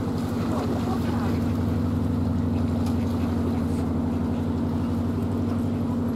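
Narrow boat's inboard diesel engine running steadily at cruising speed, an even low beat with no change in pace.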